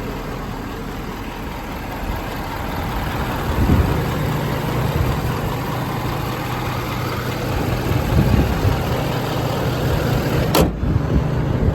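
Ford 6.7 L Power Stroke V8 turbo-diesel idling steadily, with irregular low thumps on the microphone. A single sharp click comes near the end.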